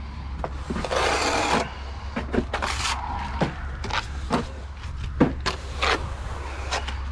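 A hand tool scraping and rubbing on the insulated wall during base coat work: one longer scrape about a second in, then a run of short strokes, over a steady low hum.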